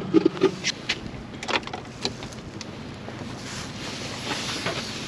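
Wind and water noise aboard a fishing boat trolling slowly, with a few sharp clicks and knocks in the first two seconds and a gust of wind hiss on the microphone after about three seconds.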